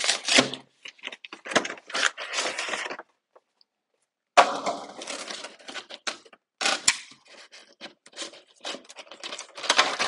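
Cardboard and plastic packaging of a Pokémon card box being handled and opened: irregular rustling, crinkling and clicking. The sound drops to dead silence for about a second roughly three seconds in, then resumes suddenly.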